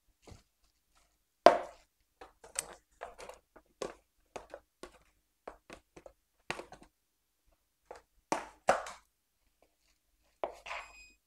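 A spoon stirring and knocking against a plastic mixing bowl, making scattered irregular clacks and scrapes as a shredded chicken, sauce and cheese mixture is mixed. Near the end an oven beeps, signalling it has finished preheating.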